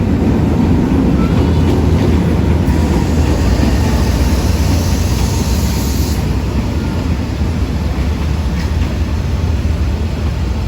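D19E diesel-electric locomotive running with a steady, loud low rumble as it hauls a passenger train into the station. A hiss joins for about three and a half seconds in the middle, then cuts off suddenly.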